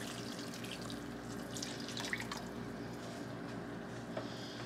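Half-and-half cream poured into a pan of beef simmering in broth, the liquid trickling and bubbling softly with a few faint crackles, over a steady low hum.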